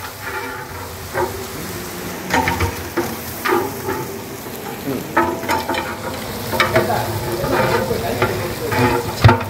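Long metal paddle scraping and stirring in a large biryani deksha, turning raw mutton into frying onions and masala over a steady sizzle of hot oil; the scrapes come irregularly, about one a second.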